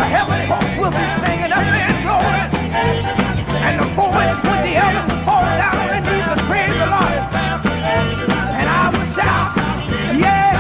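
Gospel quartet song playing: voices singing over a steady bass and drum beat.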